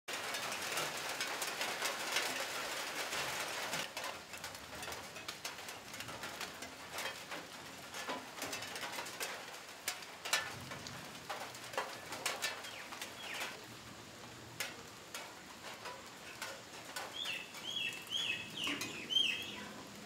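Rain pattering and dripping off leaves as a shower ends: a light steady patter that thins after about four seconds into scattered ticking drops. Near the end a bird calls a quick run of about five short high falling notes.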